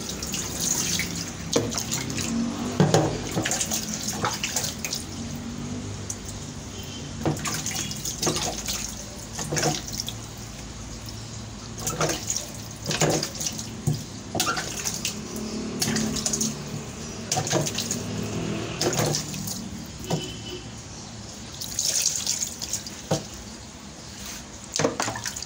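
Water poured from a plastic dipper over a wet cat in a tiled sink, splashing in irregular gushes again and again.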